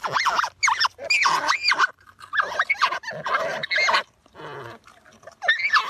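Marmots squealing as they tussle: a rapid series of short, high-pitched squeals with sharp rises and falls in pitch, easing off for about a second near the end before a last burst of squeals.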